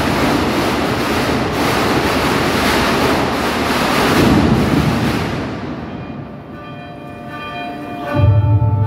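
A loud, even rushing rumble that fades away about five to six seconds in. Chiming, bell-like music tones then begin, joined near the end by a deep held note.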